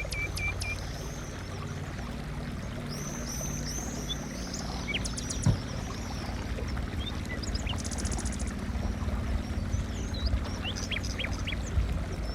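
Songbirds chirping and trilling over a steady, low engine hum.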